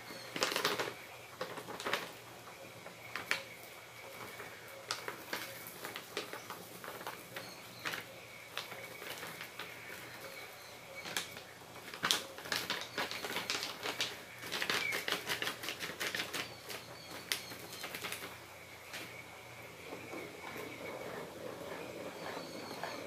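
Cake batter being stirred by hand in a plastic bowl: irregular clicks, taps and scrapes of the stirring utensil against the bowl.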